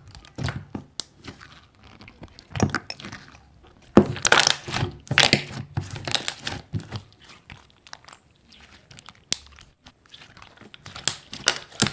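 Slime being squeezed and pressed by hand, making irregular crackling and popping, with the loudest cluster of crackles about four to five seconds in.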